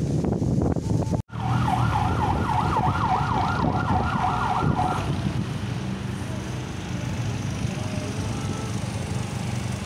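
Emergency-vehicle siren on a fast yelp, its pitch sweeping up and down about three times a second. It starts about a second in and stops about halfway through, over a steady low rumble.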